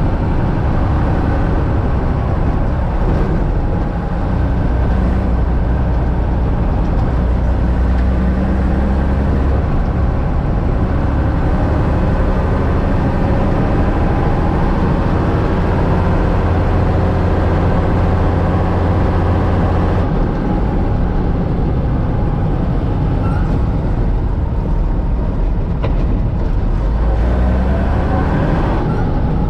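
Unimog U 406's six-cylinder diesel engine running under load as the truck drives along a gravel track. The engine note changes briefly about four seconds in, again around twenty seconds, and near the end.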